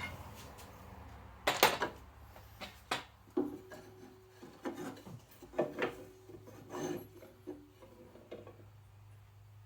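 Pieces of soft wood being set and shifted under a propped-up motorcycle fuel tank: a series of light knocks with rubbing and scraping between them.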